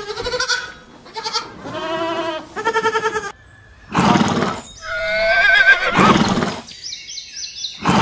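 Goats bleating, several short calls in the first three seconds. After a short pause, a horse neighs loudly from about four seconds in, its pitch wavering.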